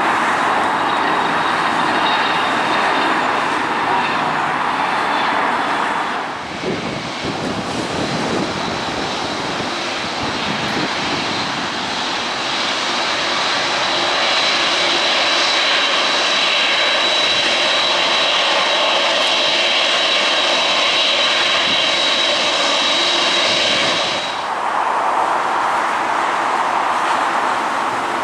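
Boeing 747-8F freighter's four GEnx turbofan engines running at taxi power: a steady high whine over a broad jet rush. The sound shifts abruptly about six seconds in and again near the end.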